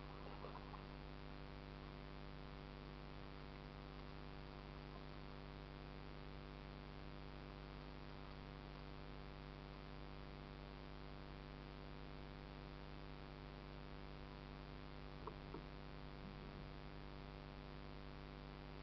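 Steady electrical hum over a faint hiss, the recording's own noise from a kayak-mounted camera. There are a couple of faint brief ticks about fifteen seconds in.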